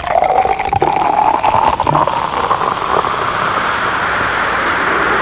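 Steady rushing, water-like noise with a crackly edge, starting abruptly just as the singing stops.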